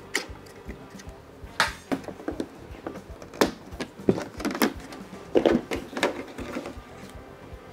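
Plastic clicks, knocks and scrapes from handling a Porsche Cayenne headlight assembly: a wiring connector being unplugged and the plastic housing being turned and set down on a bench mat. The sounds are irregular, with the sharpest knocks about halfway through.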